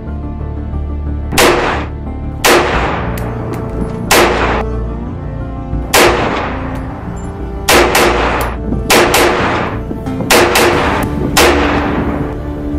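Home-built AR-15 semi-automatic rifle firing about ten single shots at an uneven pace, some in quick pairs and others a second or more apart. Each shot has a short echo.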